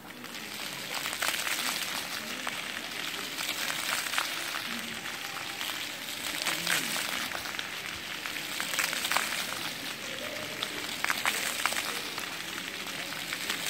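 Jets of a floor fountain spraying and splashing onto wet paving stones: a steady hiss with irregular splatters, swelling in the first second as the jets come up.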